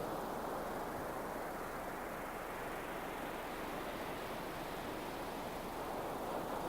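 Steady rushing noise of ocean surf on a beach, swelling slightly near the end.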